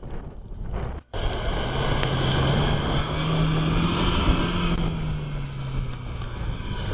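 Chevrolet Niva engine revving under load, its pitch climbing a little and then easing off, with wind on the microphone. There is a brief break about a second in.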